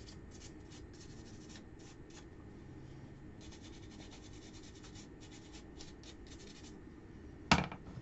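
Faint, short scratchy strokes of a pen-like tip on the wood of a small robinia burr bowl, coming in bursts as something is written on it; a single sharp knock near the end.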